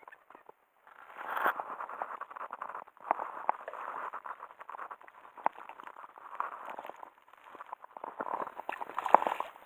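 Irregular rustling and crackling of dry reeds and clothing, with small clicks, as the angler shifts and raises his pole, in three bursts with short lulls between.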